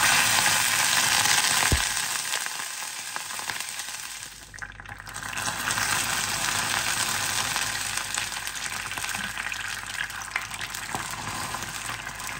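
Water poured into a frying pan of hot, light-brown caramelised sugar and oil sizzles loudly the moment it hits, eases off about four seconds in, then keeps up a steady bubbling hiss as it boils. This is the caramel being turned into a syrup.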